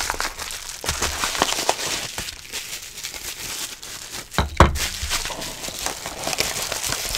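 Padded paper mailer crinkling and tearing as it is ripped open, then clear plastic wrapping rustling as it is pulled out, with one louder thump about four and a half seconds in.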